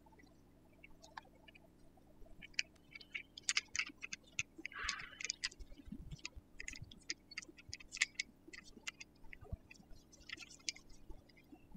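Gloved hands working a bicycle's hydraulic disc-brake hose and its fitting: faint, irregular small clicks and light taps, with a brief rustle about five seconds in.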